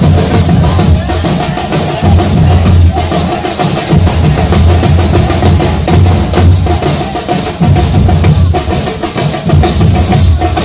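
Nasik dhol troupe playing: big barrel dhols booming out a loud, fast, driving beat, with sharper snare-like drums rattling over it.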